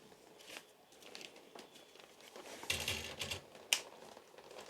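The metal rods of a quick-release parabolic softbox are pulled out one by one and snap into their spring locks. There are a few sharp clicks, and a longer rattling, rustling stretch just under three seconds in.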